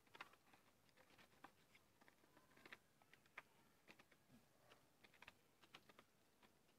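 Muscovy ducklings pecking at feed and water in plastic bowls: faint, irregular clicks and taps of their bills against the bowls.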